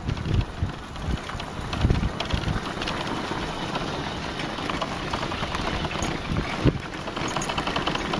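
Motorbike rolling slowly over cobblestones, its engine running low under a steady rumble of tyre noise, with frequent small knocks and rattles from the bumps.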